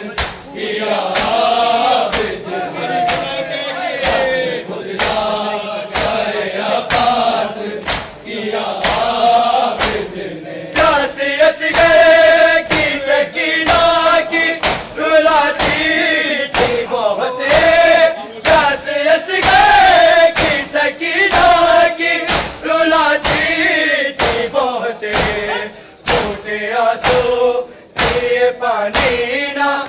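Men chanting an Urdu noha in unison, with steady rhythmic chest-beating (matam): open hands slapping bare chests a little faster than once a second. The sung voices grow fuller about a third of the way in.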